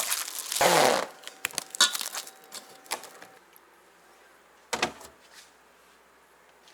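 Handling noises: a short rushing sound about a second in, then a run of sharp clicks and knocks, and one more knock a few seconds later.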